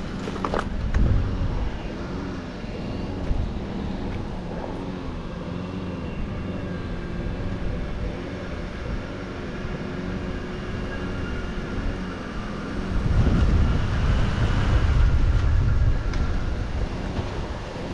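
A large engine running steadily with a wavering, pulsing hum, growing louder and heavier about thirteen seconds in for a few seconds.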